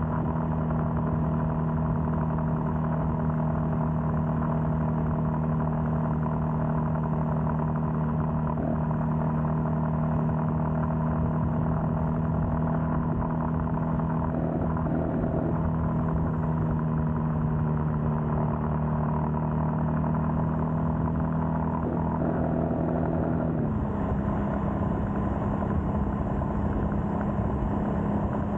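Royal Enfield Scram 411's air-cooled single-cylinder engine running at a steady cruise, with road and wind noise underneath. Near the end its note drops slightly and settles at a new steady pitch.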